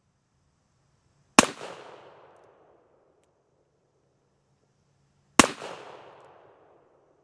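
Two shots from a black-powder cap-and-ball revolver, a Pietta 1863 Remington pocket revolver, about four seconds apart, each a sharp crack followed by a fading echo.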